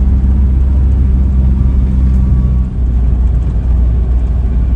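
Converted Ford Transit campervan driving slowly, heard from inside the cab: a steady low engine and road rumble that eases briefly about halfway through.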